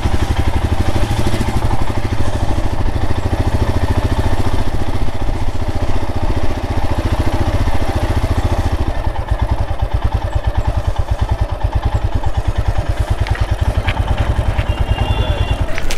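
Royal Enfield Himalayan's single-cylinder engine running at low road speed, with a steady, even thump of firing pulses that becomes more distinct about halfway through.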